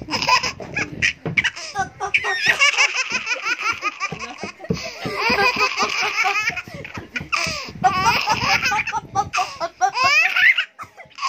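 A young child laughing hard and without letup, in long runs of quick high-pitched bursts broken by short catches of breath.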